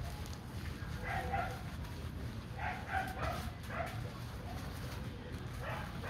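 A dog barking in short bursts: a pair about a second in, a quick run of several between two and four seconds, and one more near the end, over a steady low hum.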